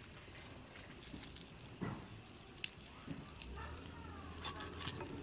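Scattered small clicks and wet crackling as hands clean a bhetki fish against a boti blade, tearing out the gills and guts. A low hum and a faint curving call join about three and a half seconds in.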